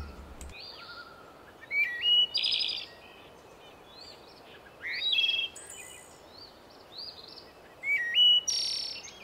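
Birdsong: bursts of short chirps and whistled calls about two, five and eight seconds in, over a faint steady hiss.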